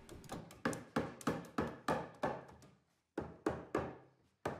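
A run of sharp knocks, about three a second with a short pause past the middle, as the plywood shear web is tapped down into the notches of the table's leg assembly during a dry fit.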